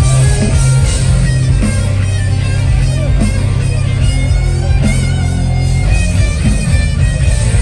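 A rock band playing live through a festival PA, heard from the crowd: loud electric guitars over bass guitar and drums, without a break.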